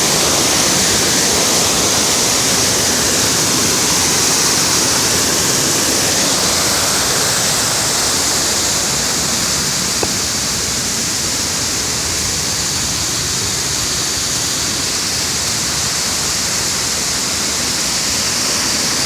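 Waterfall rushing, a loud, steady roar of falling water that stays unbroken throughout.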